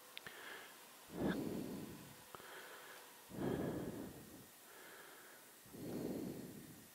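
Heavy breathing: three long, noisy breaths about two seconds apart, with a couple of faint clicks between them.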